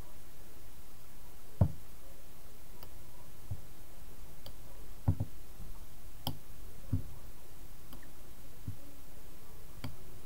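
Soft knocks and small clicks, about half a dozen spread out, from a plastic squeeze bottle of acrylic paint being pressed down onto paper to dot out blobs of paint. The loudest knock comes about a second and a half in.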